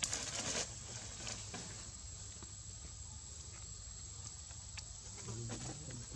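Outdoor forest ambience: a steady high-pitched insect drone, with a brief rustle at the start and a few faint scattered clicks and patters after it.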